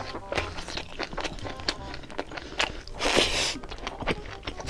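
Close-miked eating: a mouthful of braised pork belly chewed with many sticky, clicking mouth sounds, and a louder noisy rustle about three seconds in, over soft background music.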